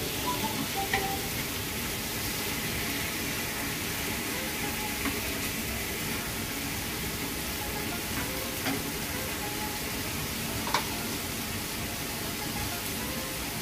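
Thin slices of marinated beef sizzling steadily in a frying pan as they are stirred with wooden chopsticks, with a few sharp clicks of the chopsticks against the pan.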